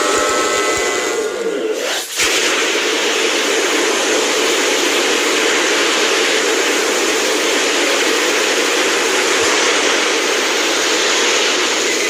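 Godzilla sound effect: a pitched, many-toned sound dies away in the first second and a half, then a loud, steady hissing rush holds for about ten seconds and cuts off at the end.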